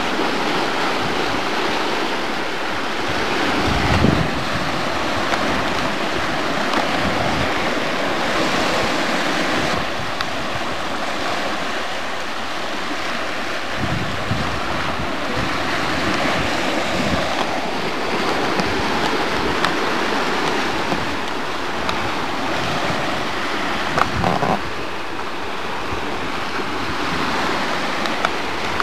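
Sea waves washing steadily against shoreline rocks, with wind buffeting the microphone in a few low gusts.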